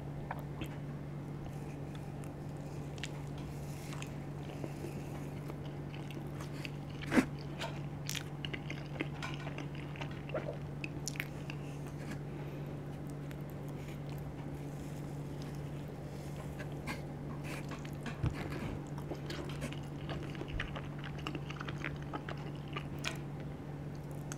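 Close-up mouth sounds of a person chewing and biting into cheesy charcoal-dough pizza: small scattered wet clicks and crunches, with one sharper click about seven seconds in, over a steady low hum.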